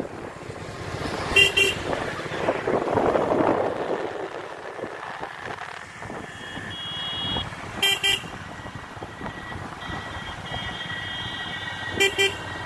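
Vehicle horn honking in short double beeps three times, about a second and a half in, near the middle and near the end, over the steady running noise of a moving vehicle on the road. Fainter steady horn-like tones sound for a second or so between the beeps.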